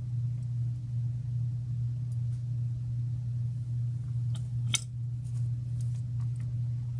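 Steady low hum, with a few faint light clicks and one sharper click about four and a half seconds in, as small hand work goes on at a soldering bench.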